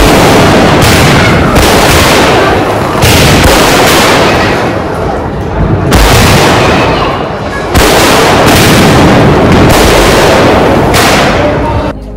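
Firecrackers bursting in a dense, rapid, unbroken barrage of bangs, very loud throughout, easing briefly twice and dropping off just before the end.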